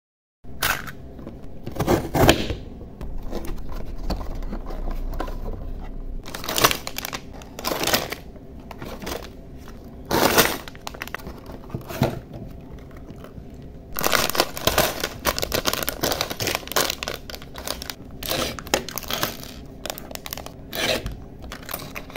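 Toy packaging being opened by hand: clear plastic bags of building-block pieces crinkling and tearing, with cardboard box handling, in irregular bursts of rustling after a brief silence at the start.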